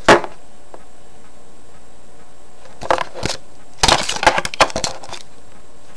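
Handling noise: a sharp knock at the start, then a few clicks about three seconds in and a longer run of clicking and rattling about four to five seconds in, over a steady hiss.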